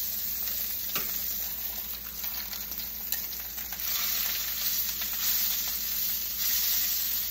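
Steak sizzling as it fries in a pan, a steady hiss that gets louder about four seconds in. A light click about a second in.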